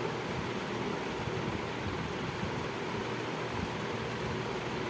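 Mutton, onion and tomato masala bubbling and sizzling steadily in an open aluminium pressure cooker on the stove.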